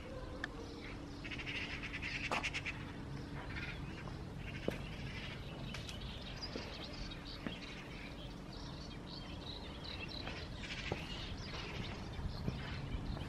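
Birds chirping and trilling in the background, with a few sharp clicks.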